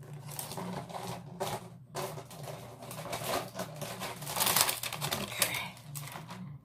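Plastic packaging of a pack of wet mopping cloths being torn open and handled: irregular crinkling, rustling and clicking, loudest about four and a half seconds in.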